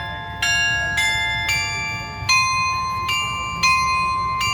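Tower carillon bells playing a slow tune, one bell struck about every half second to second, each note ringing on under the next.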